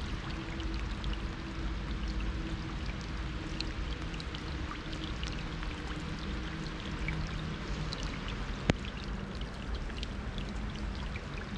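Steady rain on a city street, with many separate drops landing close by. One sharp click comes a little under nine seconds in.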